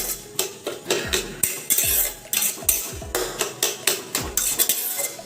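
A stirring utensil scraping and knocking against a cooking pan in a quick, regular rhythm of about three strokes a second, as a spiced lentil (dal puri) filling is stirred and dried out in the pan.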